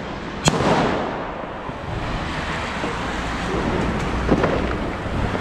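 Fireworks on New Year's night: one loud bang about half a second in, then a few fainter cracks around four seconds in, over a steady rumbling background.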